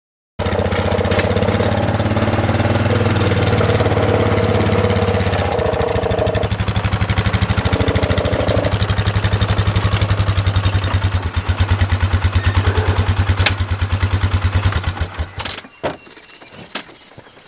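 ATV engine running, settling into an even, pulsing idle, then shut off about fifteen seconds in.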